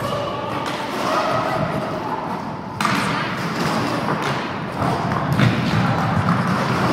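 Roller hockey play: a steady rumble of skate wheels on the rink floor with repeated thuds and knocks from sticks, ball and boards, and a sharper, louder knock about three seconds in.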